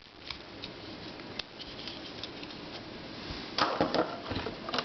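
Plastic puzzles being handled and moved on a shelf: scattered light clicks and rustling, with a louder rustle about three and a half seconds in.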